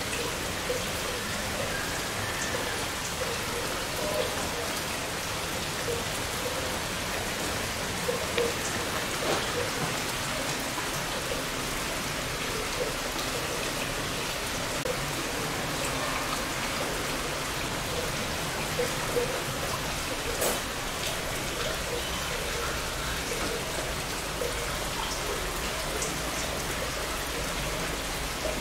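Steady rain falling and pattering on surfaces, with scattered louder drips.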